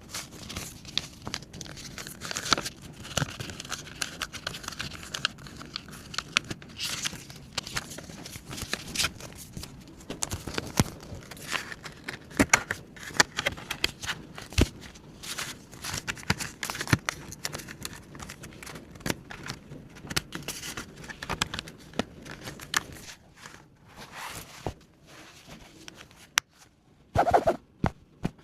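Paper and banknotes being handled up close: crinkling and rustling with many small taps and clicks, thinning out in the last few seconds.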